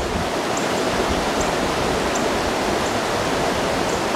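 Water pouring over a small creek waterfall and running fast below it: a steady, even rush.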